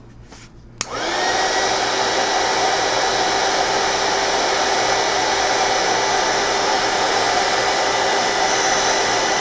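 Small craft heat gun switched on with a click about a second in, its motor spinning up to a steady high whine over the hiss of its blowing air, drying wet watercolour paint.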